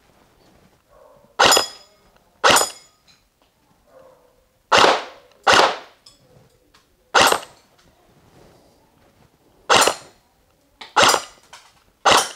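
G&G M1 Garand airsoft electric gun firing single shots: eight sharp cracks at an uneven pace, one every one to two and a half seconds. Several have a short metallic ring, typical of BBs striking steel target plates.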